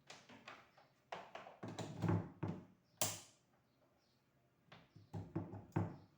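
Knocks, clicks and rattles of a small exhaust fan and its wiring being handled, in two bursts, with a short sharp scrape about three seconds in.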